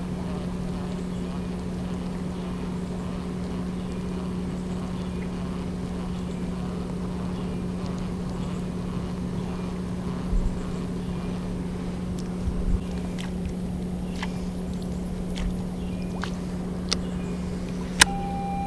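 A steady low mechanical hum, like a motor running, with a few faint clicks in the second half. Near the end a sharp click is followed by a steady high tone.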